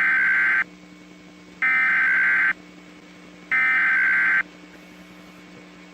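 NOAA Weather Radio EAS SAME header: three loud bursts of buzzing digital data tones, each about a second long and about a second apart, the code that opens an Emergency Alert System broadcast, here a Child Abduction Emergency. A faint steady hum runs underneath.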